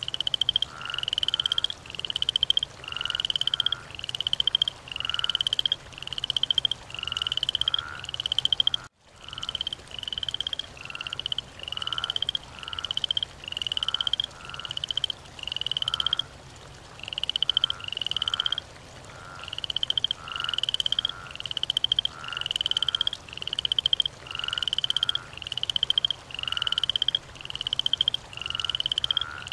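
Frog calling over and over: a short rising, rattling croak about once a second in a steady, even rhythm, cut off by a brief gap about nine seconds in.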